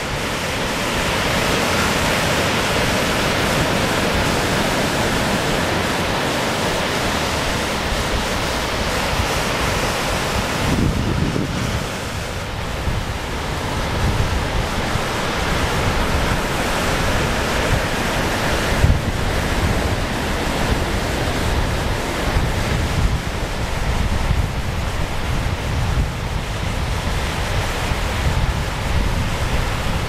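Ocean surf breaking and washing on the shore in a steady rush, with wind buffeting the microphone in an uneven low rumble.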